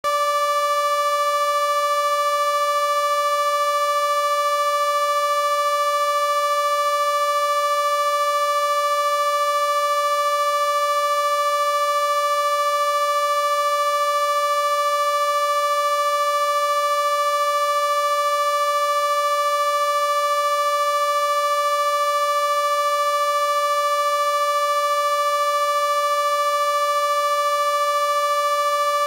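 A single steady electronic tone with a buzzy edge, starting suddenly out of silence and held without change: a sound-healing frequency tone generated from a person's voice sample.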